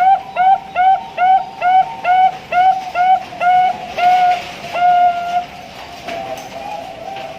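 Zebra dove (Bangkok perkutut) singing: a quick series of short cooing notes, about two and a half a second, closing about five seconds in with a drawn-out final note, the long song ending prized in perkutut bird keeping. Fainter cooing follows.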